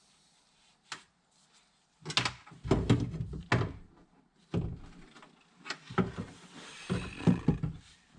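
Window motor assembly of a first-generation Ford Explorer knocking and clattering against the door's sheet metal as it is fitted back into position. The knocks come in irregular clusters from about two seconds in.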